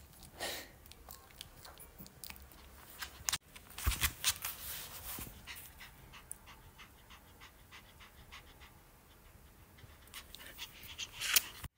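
Small fluffy dog panting close to the microphone, quick short breaths about three a second, with a few louder bunches of breaths near the start, around the middle and near the end.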